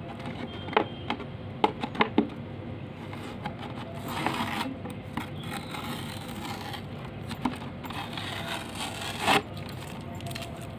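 Masking tape being peeled off an oil-painted plastic container, sticking a little to the paint: a few sharp clicks as the container is handled in the first couple of seconds, then short ripping rasps of the tape coming away about four seconds in and again near the end.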